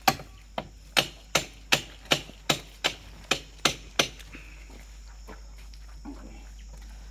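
Hammer blows on the steel track of an excavator: about eleven sharp strikes in quick succession, roughly three a second, stopping about four seconds in.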